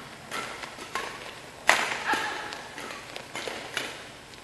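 Badminton rackets striking a shuttlecock several times in quick succession during a doubles rally: sharp cracks that echo in the hall, the loudest about a third of the way in. Court shoes squeak briefly between shots.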